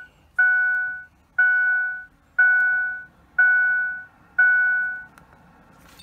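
2006 Ford F-150's dashboard warning chime with the ignition key on and the engine off: a single-note ding that fades away, repeating about once a second, five times, then stopping a little after five seconds in.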